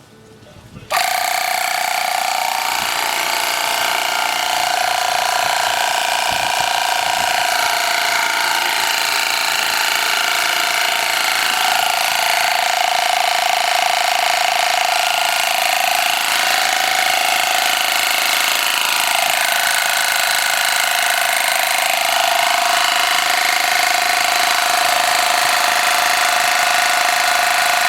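12-volt portable air compressor switching on about a second in and running steadily on power from a lithium jump starter pack, its pitch sagging briefly a few times.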